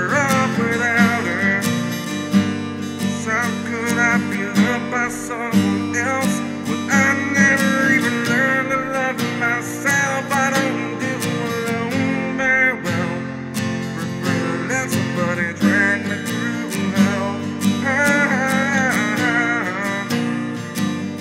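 Acoustic guitar music: a strummed acoustic guitar with a melody line that bends and wavers in pitch above it.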